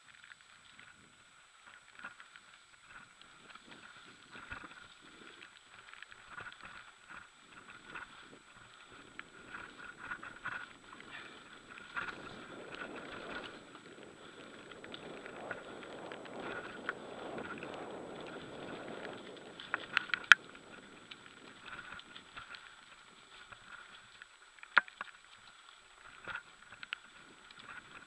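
Mountain bike descending a dirt forest trail, heard from the rider's own bike: tyres crunching over the ground and the chain and frame rattling and clicking over bumps. A rushing noise swells in the middle, and sharp knocks sound about two-thirds through and again near the end.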